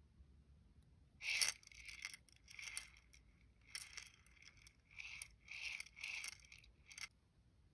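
A small clear plastic container of nail-art pearls being handled, with the pearls rattling against the plastic and the case scraping in a series of short bursts, the loudest about a second in.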